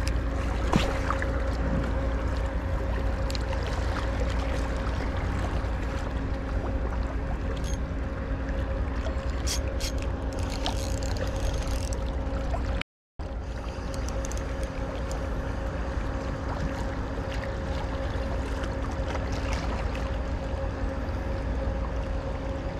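A motor running with a steady, even hum over a low rumble like wind on the microphone, with a few light clicks. The sound drops out for a moment about halfway through.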